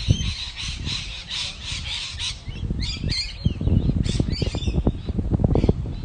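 Strong wind buffeting the microphone in gusts: uneven low rumbling and popping with bursts of hiss, heavier in the second half.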